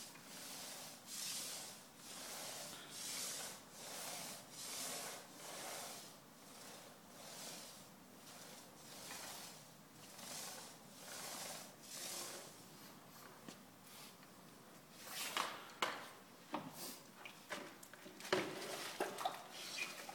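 Lacquer applicator on a pole drawn back and forth over a wooden parquet floor, a soft rubbing swish about once a second. Near the end come sharper knocks and footsteps on the wood.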